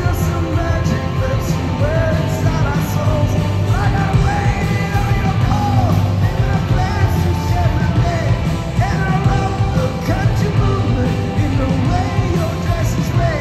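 Live rock band playing loud through a large PA, electric guitars and drums under a male lead vocal singing over them, heard from among the audience.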